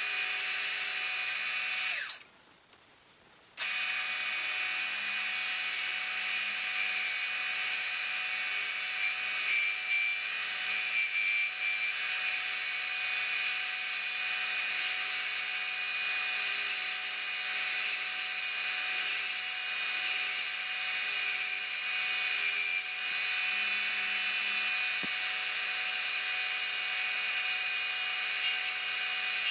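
Woodworking power tool running steadily on a wooden pen blank, a constant motor hum with a hissing cutting noise. It cuts out abruptly for about a second and a half about two seconds in, then carries on unchanged.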